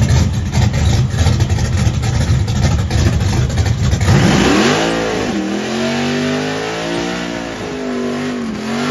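Chevrolet ZZ632 big-block V8 in an OBS Chevy pickup running with a choppy low rumble, then from about four seconds in revving up and down several times as the rear tyres spin in a burnout.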